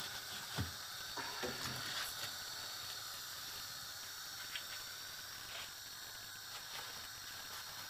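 Deep-frying oil sizzling steadily around akara bean fritters in a pan, with a few light clicks of a slotted spoon against the pan in the first two seconds.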